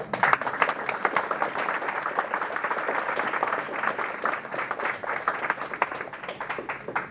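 Audience applauding, many hands clapping at once; the applause breaks out all at once and dies away near the end.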